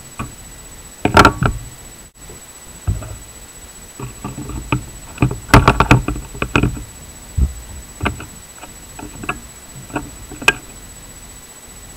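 Needle-nose pliers and stiff copper wire clicking and clinking against the leads of a bank of electrolytic capacitors as a small capacitor is fitted into place: irregular sharp metal clicks with brief ringing, bunched about a second in and again around five to seven seconds in.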